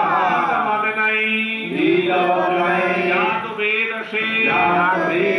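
Voices chanting a Sanskrit mantra in long, held, melodic lines, the pitch gliding between notes over a steady low held tone.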